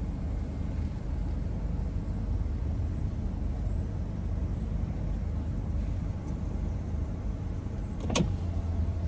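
Car engine and road rumble heard from inside the cabin as the car creeps forward at low speed, a steady low drone that grows a little louder near the end. A single sharp click about eight seconds in.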